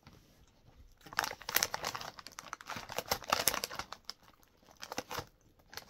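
Plastic snack packet crinkling and rustling as hands dig into it, starting about a second in, with a shorter burst of crinkling near the end.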